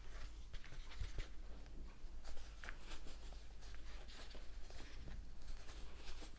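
Crochet hook working T-shirt yarn: soft irregular rustling and scratching with small clicks as stitches are pulled through, over a steady low hum.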